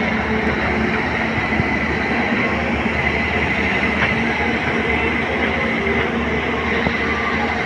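Steady mechanical rumble with a continuous clatter and a faint steady whine, holding level without a break.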